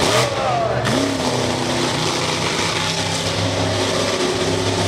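Bigfoot monster truck's engine running, with a short rev in the first second, then holding a steady pitch as the truck drives along the track.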